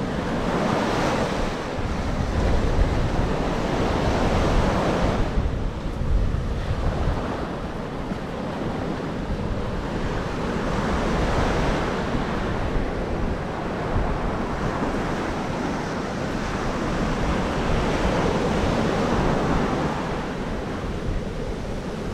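Ocean surf: waves breaking and washing on the shore in slow swells several seconds apart, with wind buffeting the microphone.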